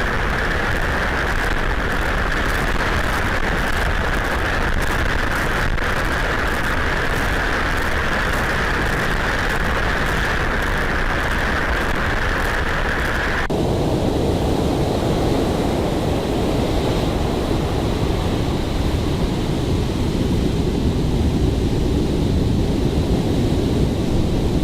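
Hurricane wind blowing hard across the microphone, mixed with the rush of storm surf. About halfway through the sound changes suddenly to a deeper, lower rush.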